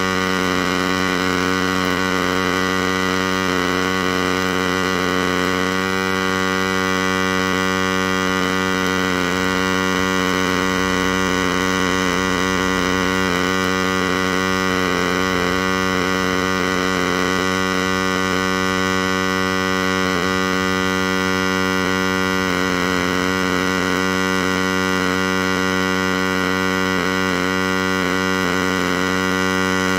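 MIG welding arc from a DIY CNC welding machine, burning continuously as it lays a bead, heard as a steady buzzing hum.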